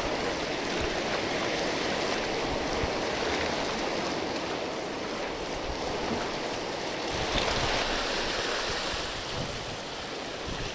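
Rough sea surf washing against a rocky shore: a steady rush of waves.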